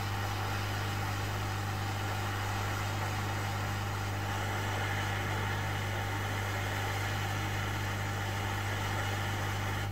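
Hot air rework station blowing a steady stream of hot air, with a constant low hum underneath, reflowing solder paste in a BGA stencil into solder balls for reballing the chip.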